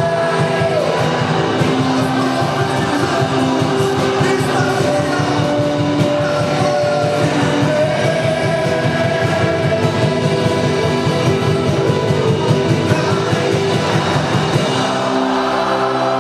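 Christian rock worship song played by a band: electric guitars and a steady beat under a sung lead vocal. Near the end the beat drops out, leaving held chords.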